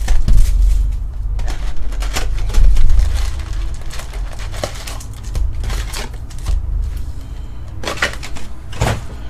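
Plastic shrink wrap crinkling as it is stripped off a trading-card hobby box, then the cardboard box being torn open and its foil packs handled and stacked. There are a couple of heavy bumps in the first three seconds.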